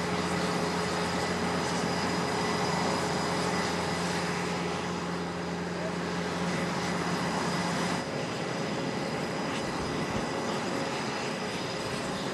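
Steady jet-engine roar on an aircraft carrier's flight deck, with a constant high whine and a low hum; the sound thins out and changes about eight seconds in.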